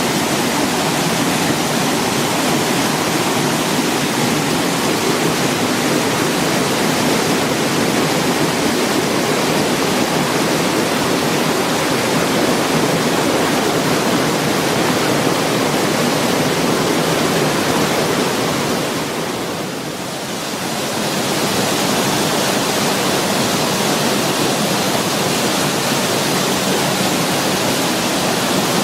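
Waterfall: a steady, loud rush of falling water, briefly softer about two-thirds of the way in.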